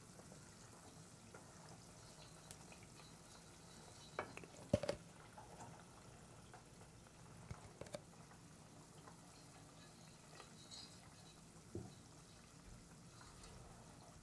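Faint sizzling of Ethiopian spiced butter (niter kibbeh) being clarified over lowered heat in a pot. A wooden spoon knocks against the pot a few times as it stirs, loudest about five seconds in.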